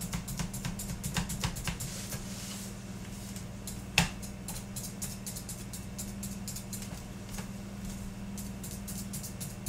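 A small kitchen knife stabbing repeatedly into raw potatoes, making quick light clicks as the tip goes through the skin and taps the pan beneath. There is one louder knock about four seconds in, over a steady low hum.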